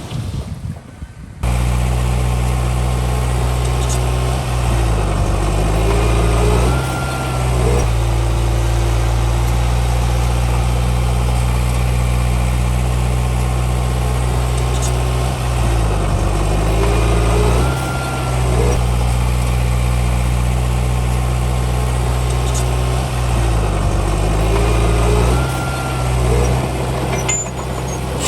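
Heavy diesel engine of earthmoving machinery running steadily. It starts abruptly about a second in, and its pitch dips and comes back up three times as the load changes.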